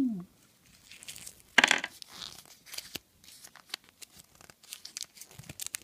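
Small folded paper leaflet from a Kinder Surprise egg being unfolded by hand, crinkling in a string of small irregular crackles, with one louder rustle about a second and a half in.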